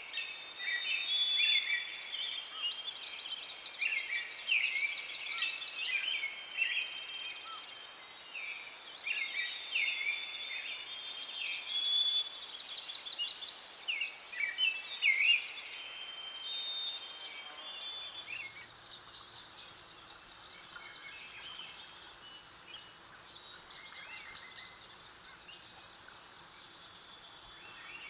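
Many birds calling over one another in short sliding calls. About two-thirds of the way through the sound changes abruptly to sparser, higher short chirps of birds over a faint low hum.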